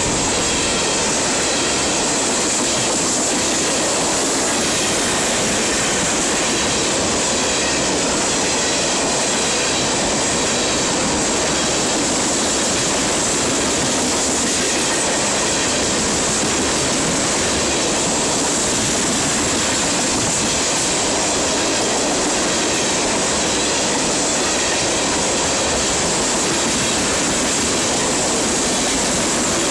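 Freight train of steel tank cars passing close at speed: the loud, steady rolling noise of steel wheels on the rails.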